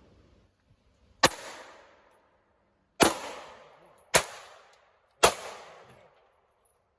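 Four gunshots, irregularly spaced about one to two seconds apart, each trailing off in a short echo.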